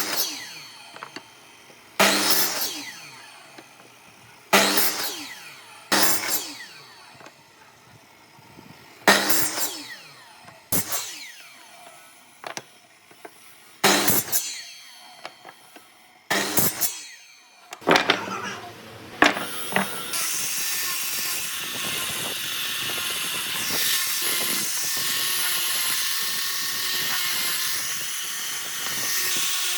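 Workshop tool sounds: a series of sharp knocks, about one every two seconds, each ringing briefly. Then, about twenty seconds in, a power tool starts and runs steadily with a whine.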